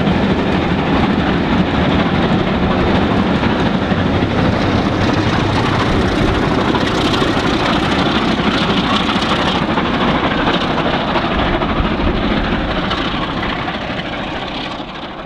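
Ex-LMS Jubilee Class three-cylinder 4-6-0 steam locomotive pulling away with a train of coaches: a loud, steady rush of exhaust and running noise, fading out near the end.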